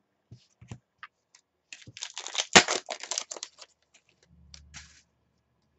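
Trading cards being handled and flicked through in the hands: scattered light clicks, then a dense run of quick card-on-card clicks and rustling for about a second and a half in the middle.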